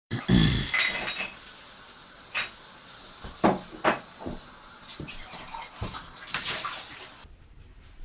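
Scattered sharp knocks and clinks of kitchen items being handled, with steps on a tile floor, over a faint steady hiss that drops away near the end.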